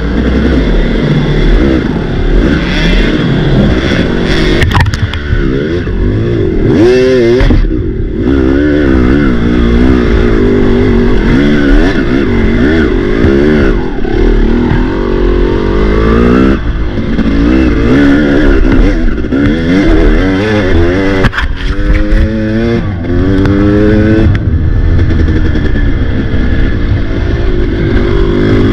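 Off-road racing motorcycle engine revving up and down as the throttle is worked over and over, its pitch climbing and dropping every second or two, with a few sharp knocks.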